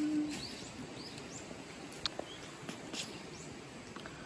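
Quiet open-air countryside ambience with faint, scattered bird chirps and a few light clicks. A hummed note trails off in the first half second.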